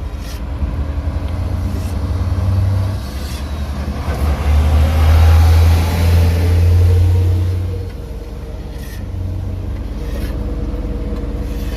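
A motor vehicle passing close on the road, its engine rumble and tyre noise swelling to a peak about midway and then fading, over a steady low engine hum.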